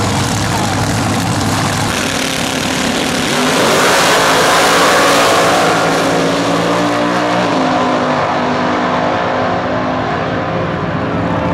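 Two vintage front-engine dragsters racing off the line at full throttle, loudest about four to five seconds in, then fading as they run away down the strip.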